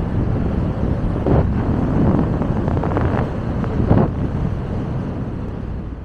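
Wind buffeting the microphone as a loud low rumble, with stronger gusts a little over a second in, around three seconds and at four seconds, easing off toward the end.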